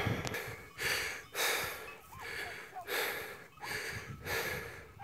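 Hard, rhythmic breathing close to the microphone, a loud breath roughly every two-thirds of a second.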